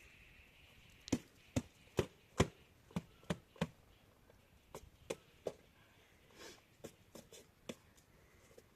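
Footsteps in snow: a quick run of about seven steps, then scattered single steps.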